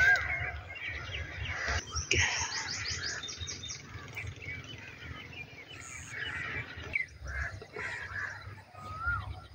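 Several birds chirping and calling, with short rising and falling notes throughout and a quick high trill about two seconds in, over a steady low rumble.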